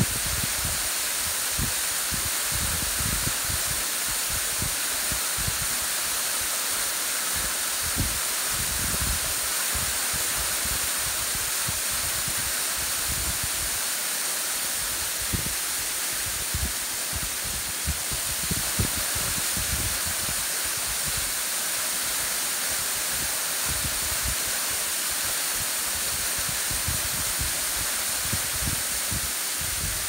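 Waterfall pouring down a rock face into a shallow pool: a steady, even rush of falling water, with irregular low rumbles of wind buffeting the microphone.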